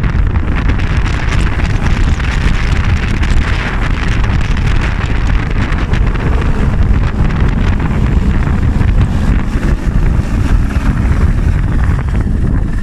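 Strong wind buffeting the microphone: a loud, steady rush with a heavy low rumble.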